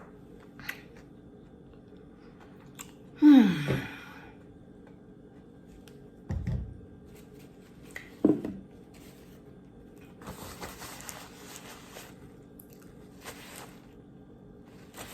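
Chewing and crunching of food close to the microphone, with a short falling vocal hum about three seconds in and another about eight seconds in, and a low thump around six seconds. A faint steady hum sits underneath.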